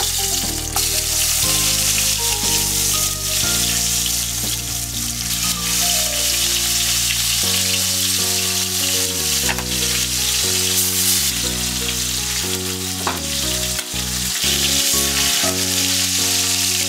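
Pieces of katla fish sizzling steadily as they fry in hot mustard oil in a non-stick kadai, with background music underneath.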